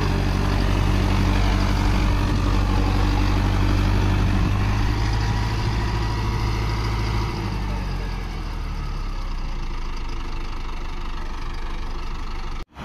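Mahindra Arjun Novo 605 DI 4WD tractor's four-cylinder diesel engine running steadily under load as it hauls a loaded trolley through deep mud. The engine note eases a little past halfway, and the sound breaks off abruptly near the end.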